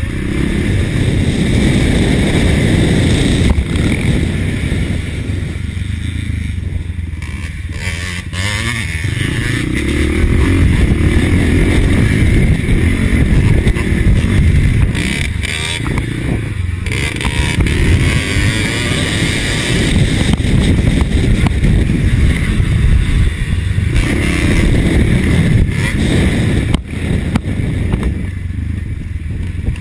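1983 Husqvarna TC 500 two-stroke single-cylinder motocross engine running hard as the bike is ridden, revving up and backing off repeatedly. It eases off about six to nine seconds in and pulls hard again from about ten seconds.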